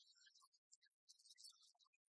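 Near silence, with only faint, scattered high-pitched specks of noise and no speech.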